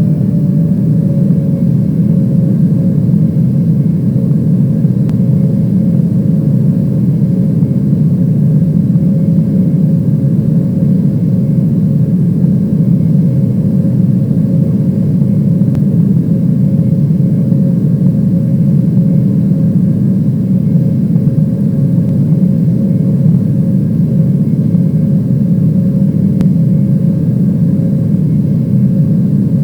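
Steady, loud drone of a passenger aircraft's engines and airflow heard inside the cabin in flight, with one steady whine held over the low rumble throughout.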